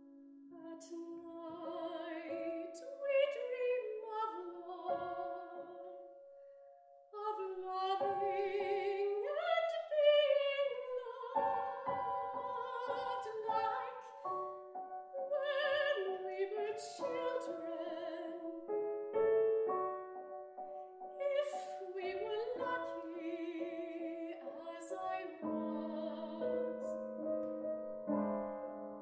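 Soprano singing an English art song with vibrato, accompanied on grand piano. There is a short lull about six seconds in, then the voice and piano resume.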